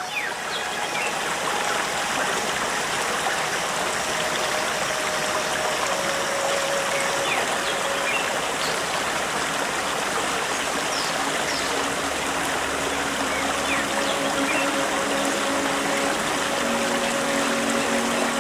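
A shallow rocky stream running steadily: an even wash of water noise that does not change.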